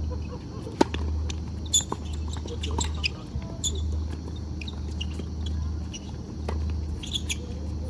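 Tennis being played on a hard court: a sharp racket-on-ball strike for the serve about a second in, then more hits of the rally, with short high squeaks of shoes on the court in between. A low rumble comes and goes underneath.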